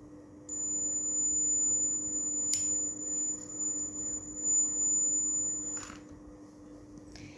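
Homemade fire-alarm circuit's buzzer going off: one steady high-pitched tone for about five seconds, with a click partway through and another as it cuts off.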